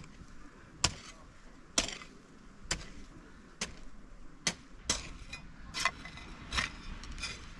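A hand hoe chopping into soil in a steady rhythm, one sharp strike about every second.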